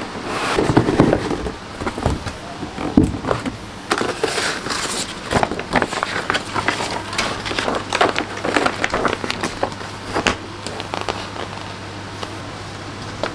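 Large paper instruction and painting-guide sheets from a plastic model kit rustling and crinkling as they are lifted and unfolded, in irregular crackly bursts that die down near the end.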